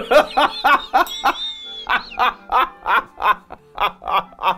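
A man laughing hard: a long unbroken run of "huhuhu ha-ha-ha" pulses, quick at first and then about three a second.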